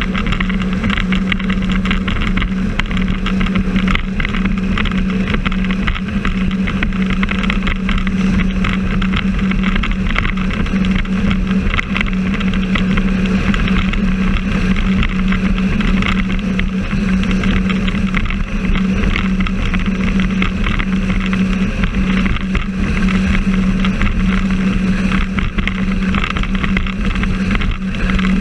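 Jet ski engine running at a steady cruising speed, one unchanging engine tone under a constant rushing noise, heard from the craft itself as it crosses choppy water.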